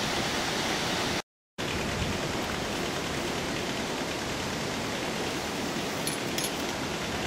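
Steady rushing of water at a weir, with a brief total dropout about a second in.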